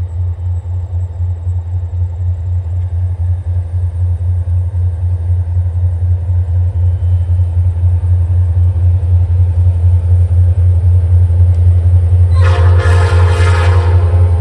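Approaching diesel locomotive: a low rumble that grows steadily louder. About twelve seconds in, its air horn sounds one blast of under two seconds, several tones together.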